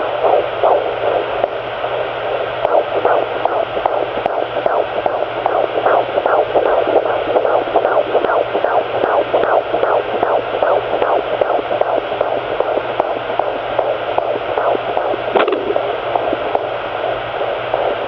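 Pocket fetal Doppler picking up a fetal heartbeat at about 17 weeks: a rapid, regular whooshing pulse over steady static hiss and a low hum.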